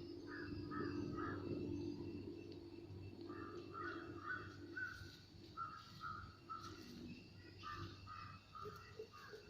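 Crows cawing in quick runs of short repeated calls, over a faint low steady hum that fades about seven seconds in.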